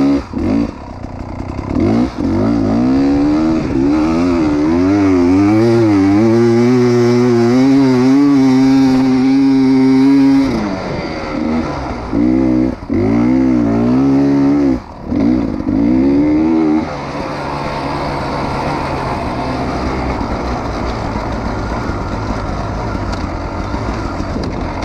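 Dirt bike engine heard from the rider's own bike, running under throttle through soft sand for about ten seconds with its pitch rising and falling. The throttle is then blipped on and off a few times with sudden cut-outs. About two-thirds of the way in it drops to a quieter, even noise with no clear engine note.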